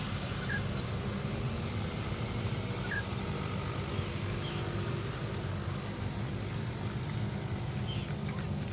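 Engines of hearse vans running as they roll slowly past, a steady low hum, with a few short high chirps over it.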